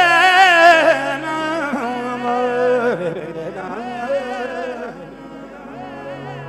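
A male singer's wordless, melismatic Punjabi Sufi alaap with wide, wavering ornaments over a steady held drone. It is loudest at the start and eases off.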